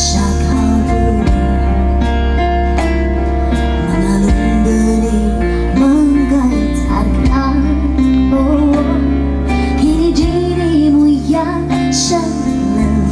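A woman singing a song into a microphone with a live band; guitar and steady low bass notes accompany her voice.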